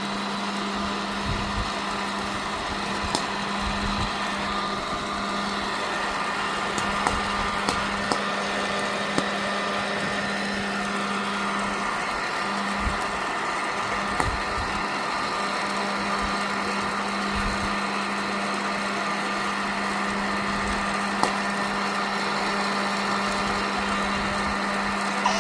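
Electric popcorn machine running: a steady motor hum and hiss, with a sharp pop now and then as kernels burst.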